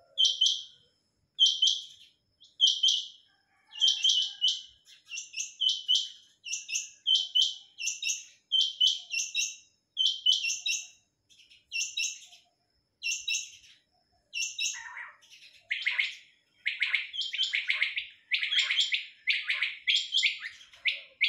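Quails calling over and over in short, high chirping calls, about one to two a second. From about two-thirds of the way in, fuller calls reaching lower join in, so more than one bird is calling.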